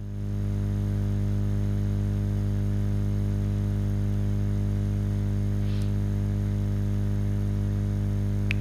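A steady low electrical hum made of several evenly spaced tones, fading in over the first second and then holding level. A faint short hiss comes about six seconds in, and a single click comes near the end.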